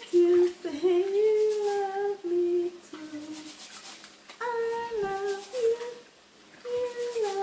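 A woman's voice humming a slow tune in long held, gliding notes, with faint splashing of water as rice is rubbed and rinsed by hand in a steel sink.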